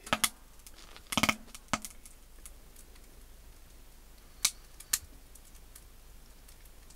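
Metal objects clinking and knocking together as they are handled, a handful of sharp clinks. Several come in the first two seconds, the loudest about a second in with a short ring. Two more follow half a second apart past the four-second mark.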